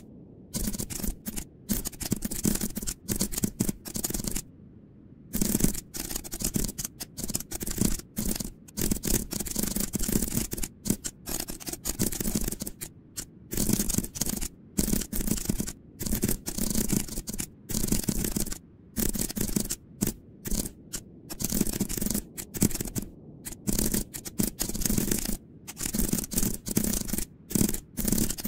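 Computer keyboard typing in quick, irregular runs of keystrokes with short pauses between them.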